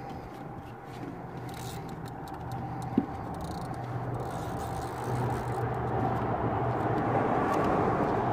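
Fishing reel's drag buzzing steadily as a hooked tarpon strips line off it, gradually getting louder, with one sharp click about three seconds in.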